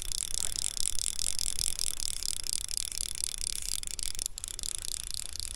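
Fly reel's click-and-pawl drag buzzing steadily as a hooked trout runs and pulls line off, with a brief break about four seconds in and a sudden stop near the end.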